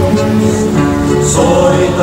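Slow, melodic music with long held notes.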